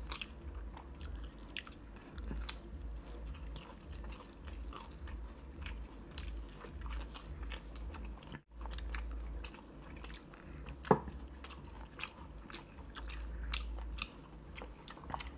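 Close-miked chewing and biting of sauce-coated fried chicken, with irregular mouth clicks and crunches and one louder click about eleven seconds in.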